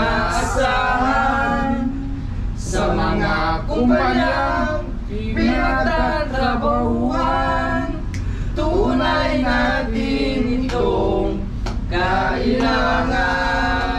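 A small group of men singing together from lyric sheets, one sung line after another with short breaths between phrases.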